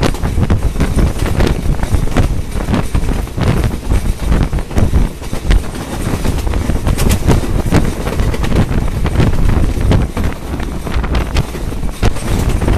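Wind buffeting a microphone held out of a moving train's window, over the steady rumble of the train running along the track, with irregular knocks and gusts throughout.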